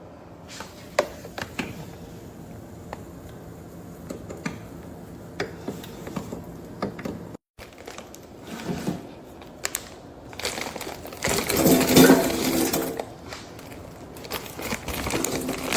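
Irregular clicks and knocks of things being handled, with a louder rustling, crumpling stretch a little past the middle.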